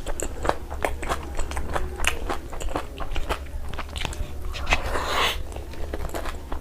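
Close-up eating sounds: a person biting and chewing crunchy food, with many short sharp crunches and a longer crackly crunch about five seconds in, over a steady low hum.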